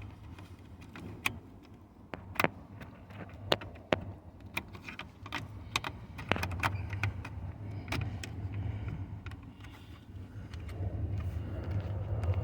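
Irregular sharp plastic clicks and knocks as a replacement wiper switch on a 2013 Ford F-150 steering column is handled and pushed into place, with a low steady hum underneath.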